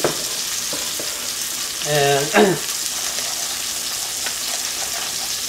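Steady sizzling of food frying. A sharp click at the very start as a ceramic lid is set on a jar, and a short vocal sound about two seconds in.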